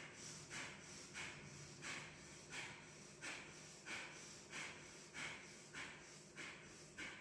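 Bhastrika pranayama, yogic bellows breathing: forceful breaths in and out through the nose in a steady rhythm, about three every two seconds.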